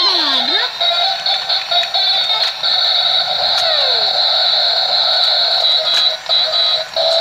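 Battery-powered toy car race track playing its tinny electronic tune, with a steady high whine running through it.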